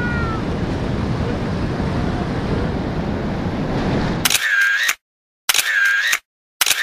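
Surf and wind on the microphone rush steadily for about four seconds, then cut off abruptly. Three short camera-shutter sound effects follow, about a second apart, with silence between them.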